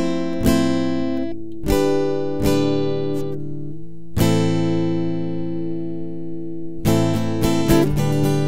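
Acoustic guitar strumming chords: a few separate chords in the first few seconds, one left ringing for a while, then a quicker strummed rhythm near the end.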